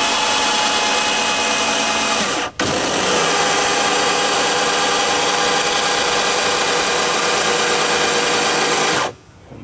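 Electric helm steering motor, a gutted portable drill's motor, running with a steady whine as it swings the outboard through its linkage. It stops for a moment about a quarter of the way in, runs again, then cuts off shortly before the end.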